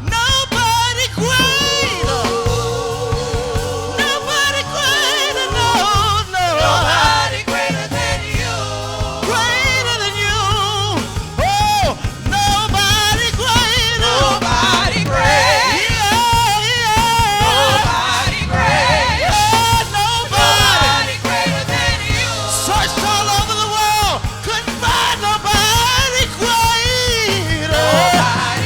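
Live gospel music: singing with wavering, sliding vocal runs over a band with a steady bass line.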